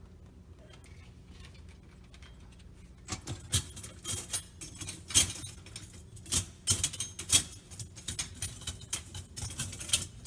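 Dishwasher rack rattling and clicking as it is worked back onto its rails, a quick irregular run of sharp clinks and knocks starting about three seconds in.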